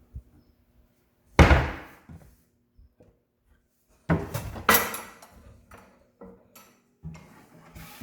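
Several sharp knocks and thuds, each with a short ring after it: a loud one about a second and a half in, two more close together just after four seconds, and smaller knocks near the end.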